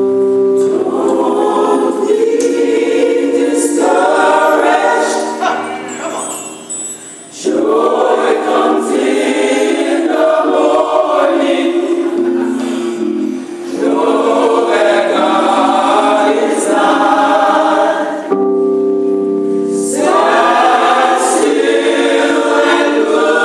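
Church choir singing a gospel song in phrases, over steady held instrumental chords that carry on alone in two short gaps between the sung lines.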